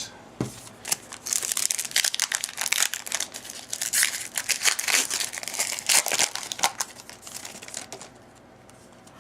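Trading card pack wrapper crinkling and tearing as it is opened and handled, in a run of irregular crackles that dies down about a second before the end.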